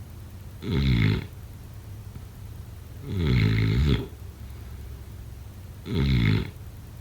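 A sleeper snoring: three snores at regular intervals, each lasting well under a second to about a second, the middle one the longest.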